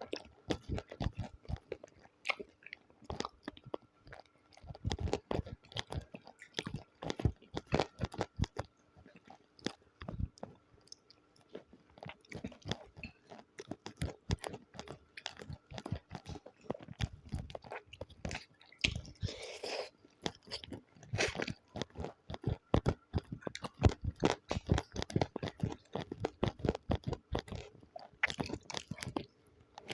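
Close-miked chewing and crunching of food, a dense run of small crisp crunches and wet mouth clicks, with a short hiss about twenty seconds in.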